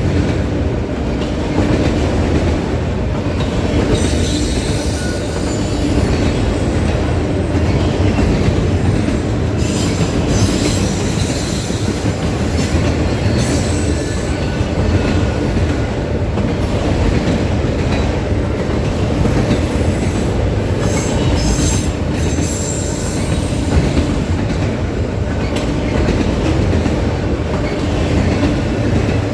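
Train rolling past: a steady rumble of wheels on the rails, with brief high-pitched wheel squeals several times.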